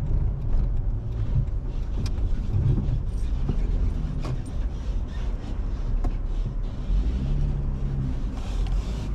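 Off-road truck driving on a paved road: a steady low engine and tyre rumble with a few faint clicks and rattles, the tyres aired down to 11–12 psi for the trail.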